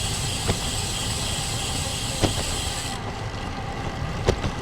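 Wind rushing over an action camera's microphone on a moving road bike, mixed with steady tyre and road noise; a high hiss drops away about three seconds in. Three short sharp clicks sound about half a second in, just past two seconds, and near the end.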